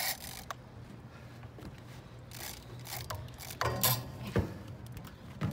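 Heavy conventional fishing reel being worked under load against a large hooked goliath grouper, its gears clicking and grinding, with several sharp knocks, the strongest about four seconds in.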